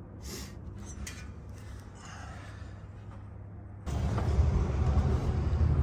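Electric welder arc crackling while welding a washer onto a broken exhaust header bolt to heat it and give it a new head for removal. About four seconds in the sound jumps louder, with a strong low hum under the crackle.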